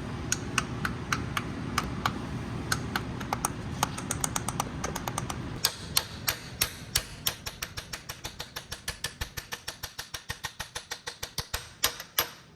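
Hammer tapping a freezer-chilled pilot bearing into the crankshaft with sharp, ringing metal strikes. The strikes come spaced at first, then from about halfway they become a fast, even run of taps that grows quieter. A low steady hum underlies the first half and stops about halfway through.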